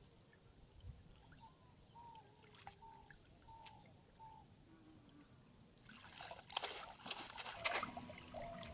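Water trickling and splashing, getting louder about six seconds in.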